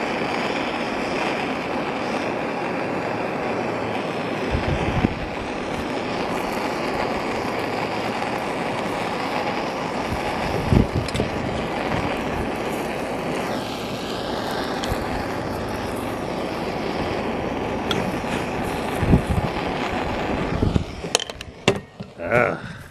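Soldering torch burning with a steady roar, shut off about 21 seconds in, followed by a few clicks of handling the fitting.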